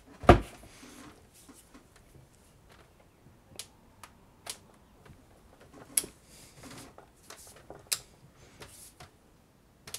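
Click-type torque wrench on a stainless steel bolt and nut clamped in a vise: one loud clack about a quarter second in, then about six sharp single clicks spaced a second or so apart as the wrench is worked up through increasing torque settings.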